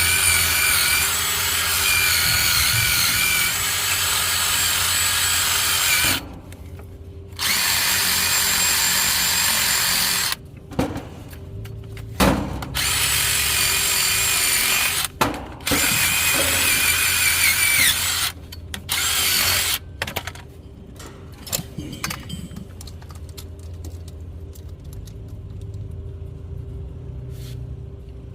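Handheld power tool running in several long bursts of a few seconds each, stopping and restarting, then a few short blips before it stops.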